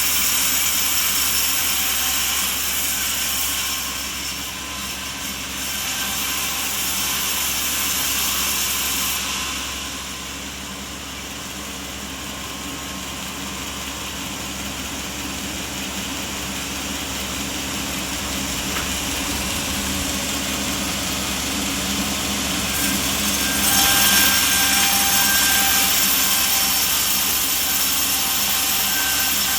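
Sawmill machinery running, a dense, steady mechanical noise with a faint underlying hum. It dips about four seconds in and again near ten seconds, then swells louder about twenty-four seconds in.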